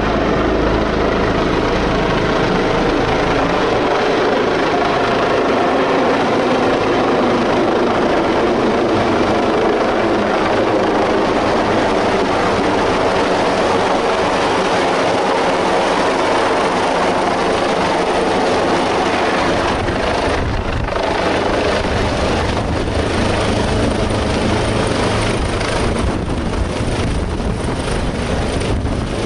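Airbus H145 rescue helicopter flying low overhead and descending to land, its main rotor and turbines making a loud, steady thrum. From about two-thirds of the way through, irregular gusts of rotor wash buffet the microphone.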